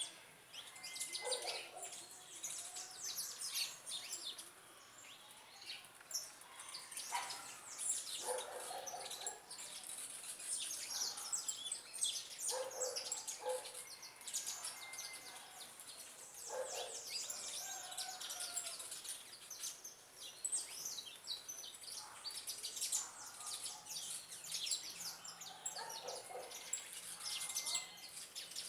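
Many small birds chirping in a dense, continuous chorus of rapid high chirps, with a few shorter, lower calls now and then.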